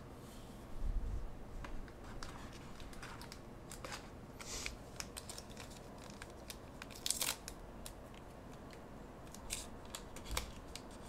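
Handling sounds from opening a trading card booster pack: the foil wrapper crinkling and tearing, and the cards being handled, heard as a string of short clicks and rustles. Louder crinkles come about four and a half and seven seconds in.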